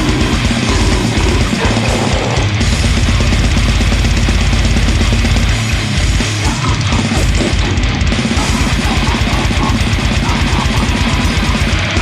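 Brutal death metal song playing: heavily distorted guitars over rapid, machine-gun kick drums.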